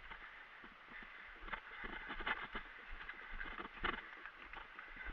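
Footsteps and brushing through dry undergrowth: irregular crunching and crackling of dry leaves and twigs, with a few sharper snaps.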